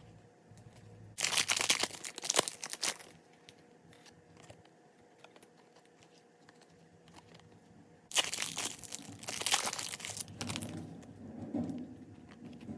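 Wrapper of a basketball trading-card pack being torn open and crinkled, in two bursts of rustling about a second in and again about eight seconds in, with quieter handling of the cards after the second.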